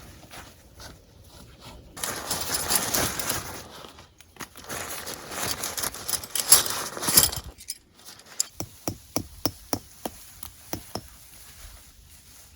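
Tent being set up: two spells of loud rustling and handling noise, then a quick run of sharp clicks and knocks, about three a second, for a few seconds.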